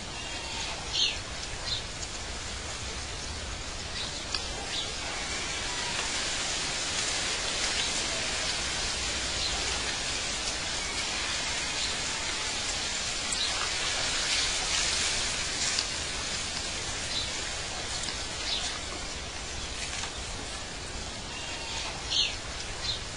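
Ambient soundtrack of steady rushing water, a little louder in the middle, with short bird chirps a few times.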